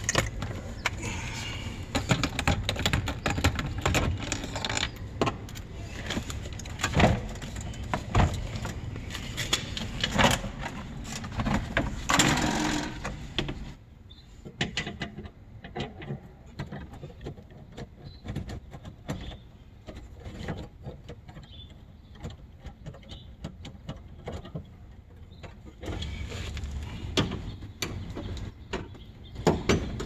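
Scattered clicks, knocks and scrapes of a screwdriver and hands working on a 2005 Honda Civic's door: plastic trim and the metal lock rods inside the door shell. A steady rustling background drops away about halfway through, leaving the clicks more isolated.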